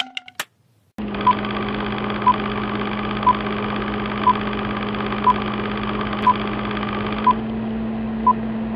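Film-countdown sound effect: a few clicks, then a steady whirring run with a low hum, like a film projector running, with a short high beep once every second marking the count.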